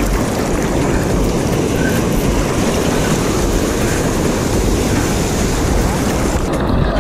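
Surf water rushing and splashing against a camera held at the water's surface, with a steady low rumble on the microphone from the moving water and wind.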